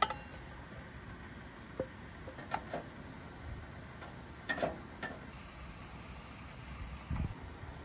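A plastic spatula scraping and knocking against a metal camping pot as vegetables are stirred into pasta: a handful of short, scattered scrapes and taps over a faint steady hiss, with a duller low knock near the end.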